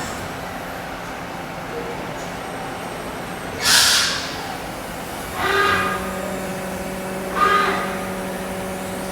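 CNC lathe spindle running with a steady machine hum. A 3D-printed polishing tool holding a strip of abrasive paper is pressed against the spinning bearing diameter three times: first a brief hiss about three and a half seconds in, then two short squeals with several pitches at once, about two seconds apart.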